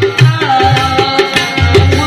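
Devotional music: a tabla playing a steady rhythm, its deep bass strokes prominent, under a long-held, wavering melody line.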